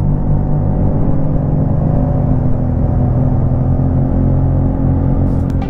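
A vehicle engine running steadily, a low even hum with no revving.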